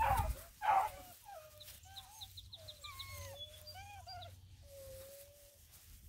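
Black and tan coonhound puppies whimpering and whining: a few rough scuffling bursts in the first second, then a string of short whines that bend up and down, ending in one longer, steadier whine. A quick run of high chirps comes in briefly about two seconds in.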